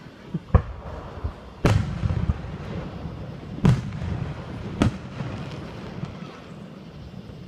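Aerial fireworks exploding: four loud booms spread over the first five seconds, with a few fainter pops between them, each boom trailing off in a low rumble.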